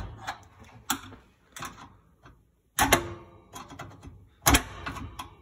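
Screwdriver prying at the metal door-hinge locking tabs of a Jenn-Air wall oven: a series of sharp metal clicks and scrapes, the loudest about three seconds in and near the end, one with a brief metallic ring.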